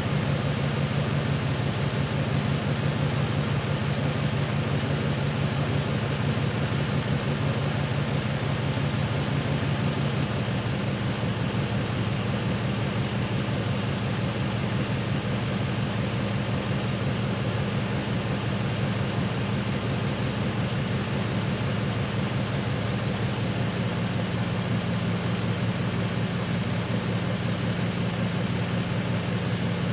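Truck engine idling steadily, an even low note whose pitch shifts slightly twice.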